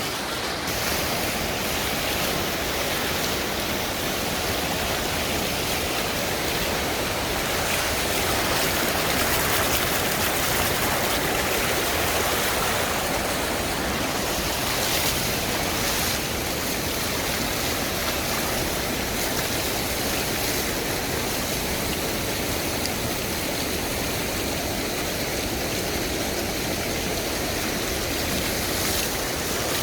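Fast-running flash-flood water rushing steadily as a constant noise.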